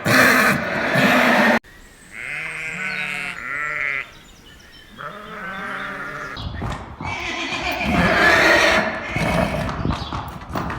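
Farm animals bleating in a series of short clips that cut abruptly from one to the next. The clearest calls are wavering bleats a couple of seconds in.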